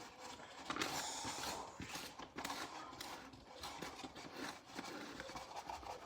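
Irregular clicks, knocks and scraping from hands working at a toy's plastic packaging and its contents, with a brief scratchy rustle about a second in.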